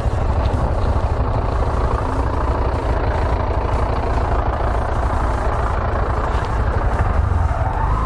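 Honda SP 125 motorcycle's single-cylinder engine running at low speed over a broken, rocky road, with a car's engine close by; a steady, heavy low rumble throughout.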